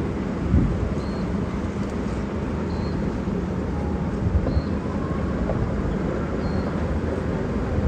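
Heavy construction machinery's diesel engine running with a steady low rumble. A faint short high-pitched beep repeats about every second and a half to two seconds, like a machine's warning alarm.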